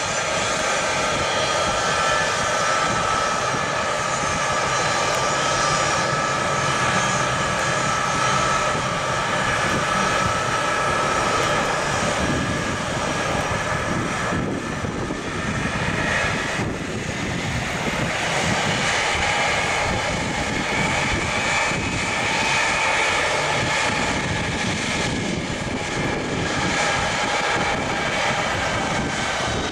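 The four Pratt & Whitney F117 turbofans of a Boeing C-17A Globemaster III at taxi power as it turns onto the runway to line up: a steady jet whine made of several high tones, which shift slightly in the second half as the aircraft turns away.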